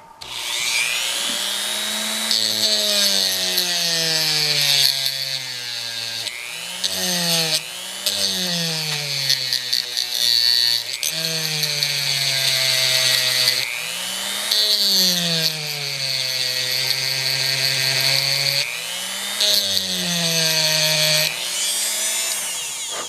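Dremel rotary tool grinding out the metal wheel well of a die-cast model car body for wheel clearance. Its motor whine sags and recovers in pitch again and again as the bit is pressed on and eased off, over a steady high grinding hiss.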